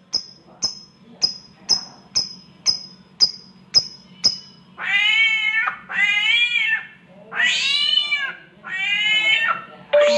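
A samyong songbird giving a run of short, sharp, high chirps about twice a second. About five seconds in, it switches to four drawn-out wails that mimic cats caterwauling in heat.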